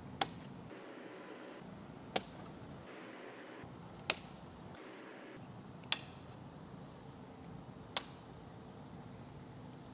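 Sharp plastic clicks, five of them about two seconds apart, as trim pieces are pressed into place on a plastic bumper cover, over a low steady background hum.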